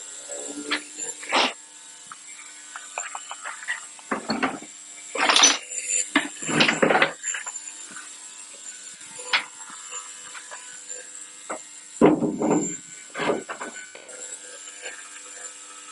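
Steady hum of an ultrasonic cleaner running with old carburettors churning in it. Over the hum come intermittent clatters and rustles of parts being handled, loudest about five to seven seconds in and again around twelve seconds.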